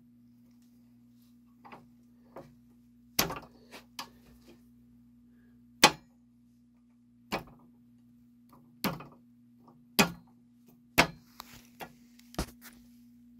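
Irregular sharp clicks and knocks of brass and steel clock parts being handled and fitted into the gear train of a lighthouse lens drive clock movement, about a dozen in all, the loudest about six seconds in. A steady low electrical hum runs underneath.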